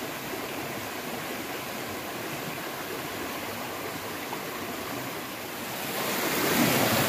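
Small mountain stream running over rocks: a steady rush of water that grows louder about six seconds in.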